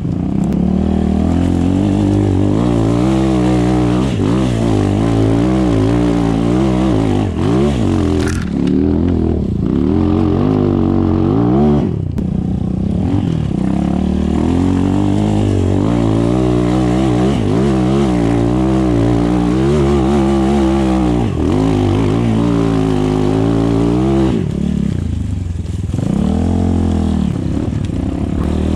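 Chinese-made enduro motorcycle engine revving up and down over and over under load on off-road hill climbs. Twice, about twelve seconds in and again near the end, the revs drop away briefly before picking up.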